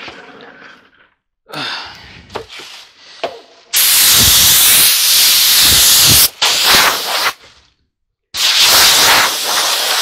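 Compressed-air hose nozzle blowing dust off a person's clothes: a loud hiss of air for about two and a half seconds, a couple of short bursts, then another long blast near the end.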